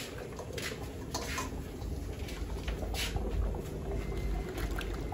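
Stainless steel bowl being handled, with scattered light knocks and scrapes, as seasoned fish pieces are tipped from it into a pot of broth, over a steady low rumble from the boiling pot.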